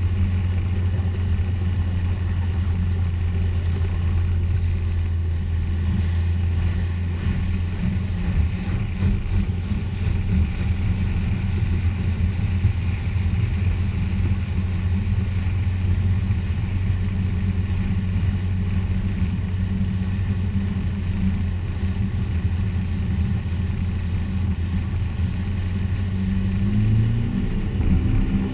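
Inboard motorboat engine running steadily under way, a low even engine note heard from on board. Near the end the note rises as the revs climb.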